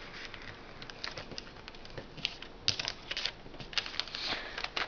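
Sheet of paper being handled and folded: scattered light crackles and taps as the paper is creased and pressed down.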